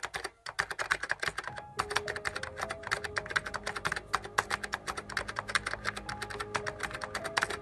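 Rapid typing on a computer keyboard: a quick run of key clicks with a couple of brief breaks, over faint background music.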